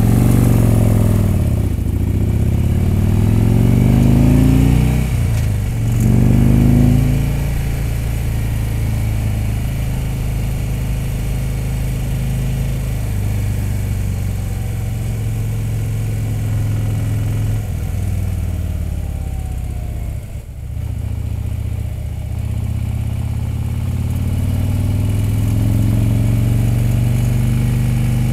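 Harley-Davidson touring motorcycle's V-twin engine pulling away and accelerating through the gears: its note rises three times with gear changes in the first seven seconds, then it runs steadily at cruising speed. About twenty seconds in the throttle briefly closes, and the note then climbs again gradually.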